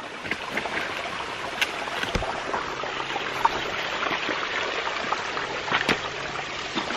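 Small mountain creek running over rocks, a steady trickling rush of water, with a few light knocks.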